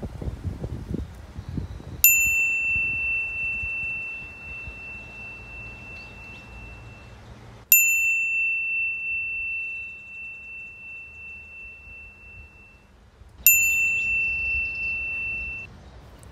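A bell chime struck three times, about six seconds apart, each strike ringing on one high, clear tone for several seconds; the last rings more briefly.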